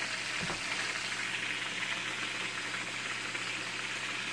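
Pieces of whiting fish frying in hot oil in a skillet, a steady sizzle.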